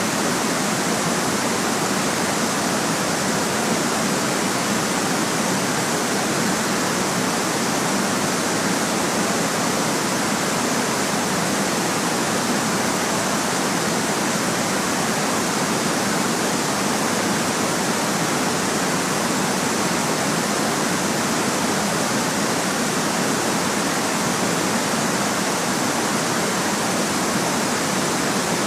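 Steady white noise: an even, unbroken hiss with little low bass and no change in level.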